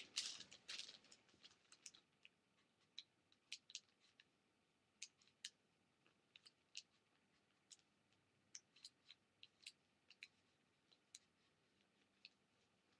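Faint, scattered ticks and scratches of a pen's marker nib on a paper receipt as a message is written.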